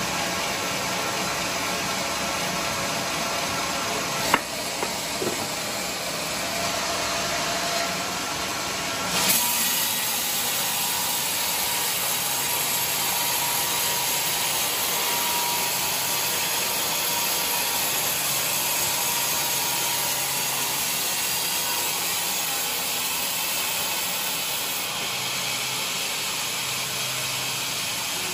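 Band sawmill running and cutting lengthwise through a large teak log, a steady sawing sound. There is a sharp knock about four seconds in, and the sound turns brighter and hissier about nine seconds in.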